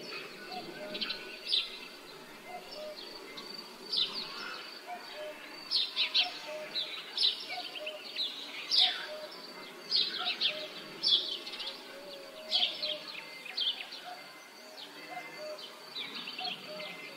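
Village outdoor ambience of small birds chirping, with many short, sharp calls overlapping throughout. A faint low note repeats about once a second under the chirps, over soft background noise.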